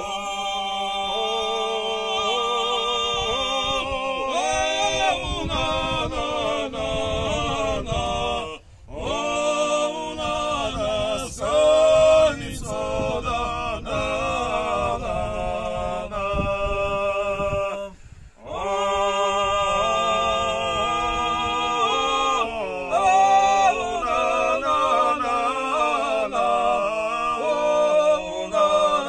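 Three men singing a Georgian folk song a cappella in close harmony, holding long chords. The singing breaks off briefly twice, about a third and two thirds of the way through, for a breath between phrases.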